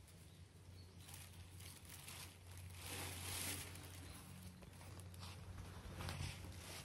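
Faint rustling and crackling in dry leaves and grass, loudest in a burst about three seconds in, over a low steady hum.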